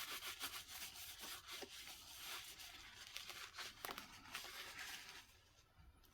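Paper towel dampened with isopropyl alcohol scrubbing the underside of a stringing machine's clamp cam in quick, fairly faint rubbing strokes, which stop about five seconds in.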